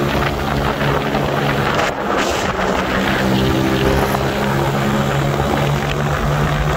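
Motorcycle engine running steadily at cruising speed, heard from the rider's seat, with road and wind noise over it.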